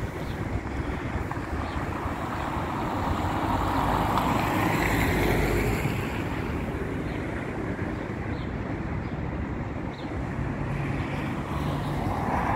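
A TrolZa-62052.02 trolleybus in motion: a steady rush of running noise that swells for a couple of seconds about four seconds in.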